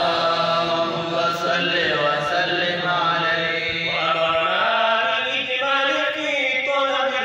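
A man's solo voice chanting an Islamic devotional recitation into a microphone, melismatic, holding long notes with small ornaments, the pitch stepping up a little about halfway through.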